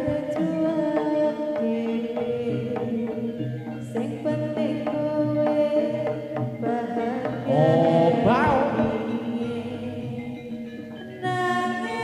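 Live jaranan music amplified through loudspeakers: hand drums beating under pitched gamelan tones with singing. A pitch glide comes about two-thirds of the way in, and the music comes in louder near the end.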